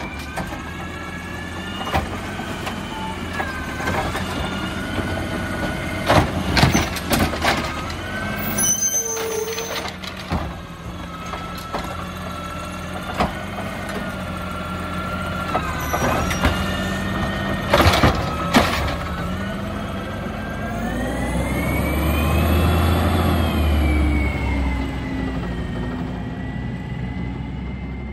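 Automated side-loader garbage truck at work: the hydraulic arm whines with gliding pitch as it lifts and empties a wheeled trash cart, with several sharp clanks and bangs from the cart and arm, over the steady running of the diesel engine. Near the end the engine revs up, rising in pitch, as the truck pulls away.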